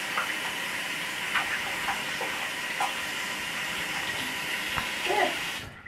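Tap water running steadily into a bathroom vessel sink over hands being scrubbed, with small splashes. It cuts off abruptly near the end.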